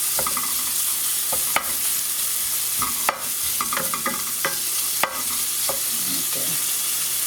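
Chopped bacon frying in a pan, a steady sizzle as the fat renders out. A few sharp clicks and scrapes break through it, the loudest about one and a half, three and five seconds in.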